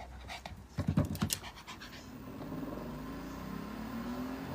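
A dog panting, with a run of quick short breaths about a second in, then a faint, low, drawn-out sound.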